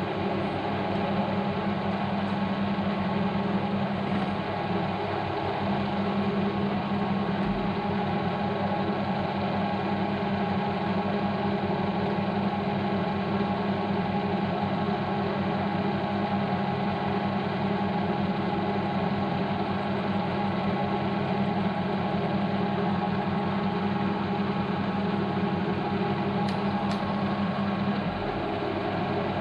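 Milling machine running with a dovetail cutter taking a light cut across the teeth of a ratchet wheel, coolant spraying; a steady machine hum with no breaks.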